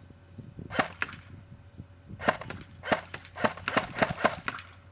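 Dboys M4 airsoft electric gun firing on semi-automatic: about ten sharp single shots, two about a second in and then a quicker, irregular run from a little past the two-second mark.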